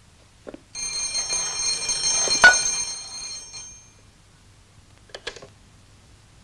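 An old box telephone's bell ringing for about three seconds and fading out. A couple of sharp clicks follow about five seconds in as the handset is picked up.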